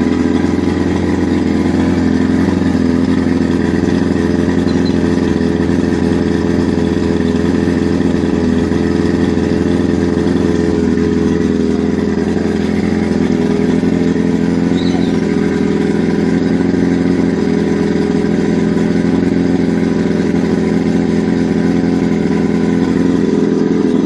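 50 hp Mercury two-stroke outboard motor running steadily on its trailer, out of the water.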